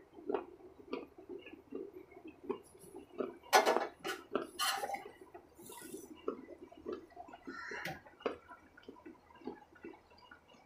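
Close-up eating sounds: wet mouth clicks, lip smacks and chewing, irregular throughout. Two louder sharp smacks come about three and a half and just under five seconds in.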